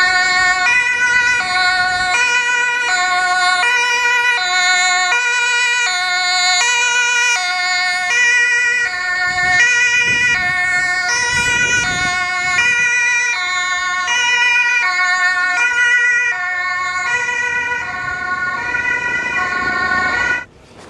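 German two-tone emergency siren (Martinshorn) on a Malteser ambulance, switching between a lower and a higher pitch about every half second. It cuts off abruptly near the end.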